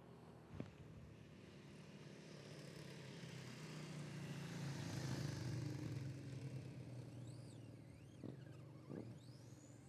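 Two small motorcycles passing by, their engine sound swelling to a peak in the middle and fading away. Near the end come short high whines that rise and fall.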